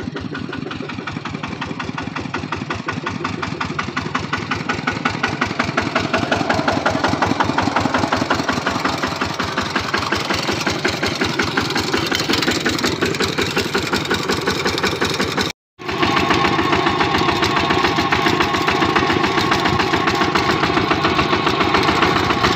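Kubota RT-series two-wheel tractor's single-cylinder diesel engine running under way while pulling a trailer, a rapid, even beat of firing pulses. The sound cuts out for a split second about two-thirds of the way through, then carries on.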